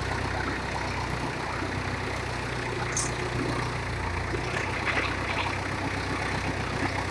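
Voltas forklift engine running steadily at low revs while the truck works a pallet into the container, with a sharp click about three seconds in and light clatter near five seconds.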